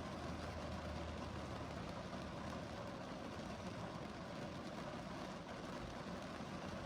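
Steady rain falling, a continuous even hiss with no let-up.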